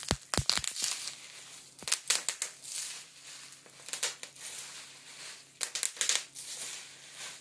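Bubble wrap rolled into a sausage and twisted in the hands, its bubbles popping in irregular clusters of sharp cracks with crinkling plastic in between. It is meant to sound like fireworks.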